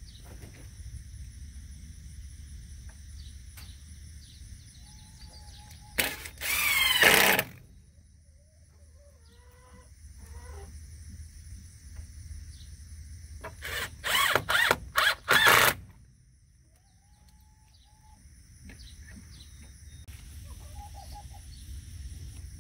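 Cordless drill driving screws through metal hurricane clips into wooden roof trusses. There is one run of about a second and a half around six seconds in, then a burst of about five short pulses around fourteen seconds. Faint hens cluck between the runs.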